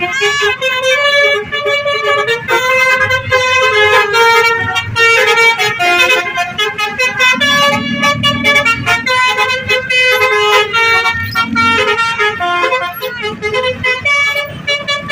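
Tourist buses' Basuri musical air horns playing melodic 'telolet' tunes: quick runs of changing notes, several pitches sounding at once.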